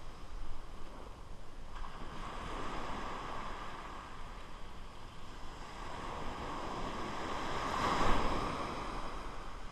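Small surf washing up the beach around the feet: a steady rush of foamy water that swells near the end as a wave runs up.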